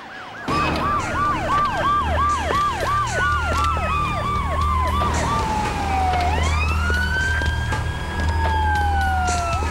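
Several police car sirens sounding together. One is in a fast yelp, about three cycles a second, for the first half, while others wail, slowly rising and falling, over a steady low rumble.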